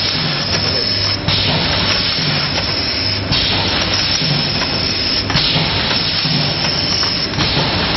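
Shampoo pouch filling and packing machine running: a loud steady hiss over a low hum that pulses, the hiss dipping briefly about every two seconds.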